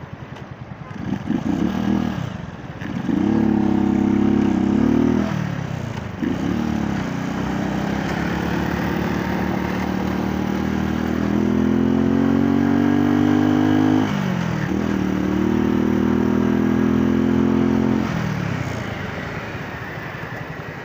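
Motorcycle engine accelerating through the gears, its pitch climbing in each gear and dipping at the shifts a couple of seconds, about five seconds and about fourteen seconds in. It then holds steady and eases off near the end.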